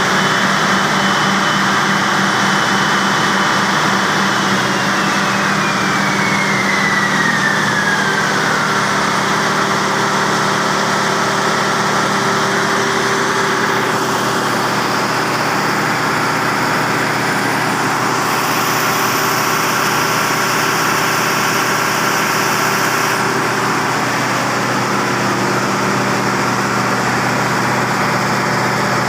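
Diesel generator engine running steadily under a constant drone. Early on, a high whine slides down in pitch over about four seconds.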